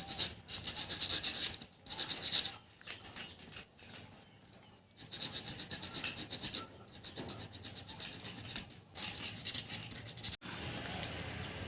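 Emery paper rubbed quickly back and forth on the contact faces of a three-phase L&T DOL motor starter's contactor, in several spells with short pauses. It is cleaning off the dirt that makes the starter hum.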